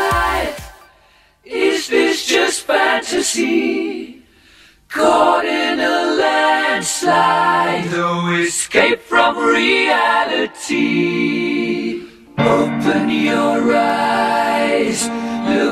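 Background music: a dance track fades out at the start, and after a brief silence a song with group singing begins, breaking off briefly about four seconds in before carrying on.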